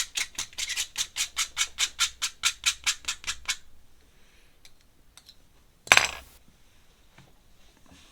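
Rapid, even scratching strokes on paper, about four or five a second, as ink texture is worked into a drawing; they stop about three and a half seconds in. About six seconds in comes one short, loud scrape.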